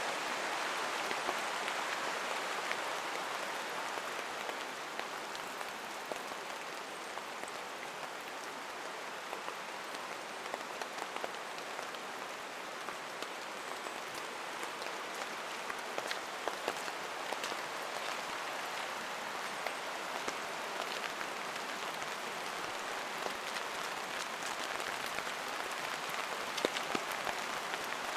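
Steady rain falling through forest, an even hiss with scattered sharper drops landing close by.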